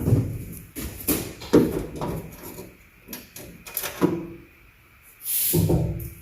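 Irregular clicks, clunks and rattles of metal hardware being handled and fitted at a truck door, with a louder scrape or knock about five seconds in.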